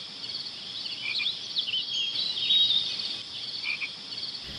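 Night chorus of crickets and frogs: a high, pulsing cricket trill repeating steadily, with scattered chirping calls over it between about one and three seconds in.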